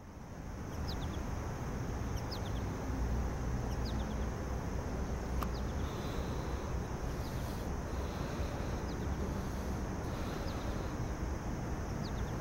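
Outdoor park ambience: a steady low rumble with short, high chirps of small birds, each dropping in pitch, recurring every second or two.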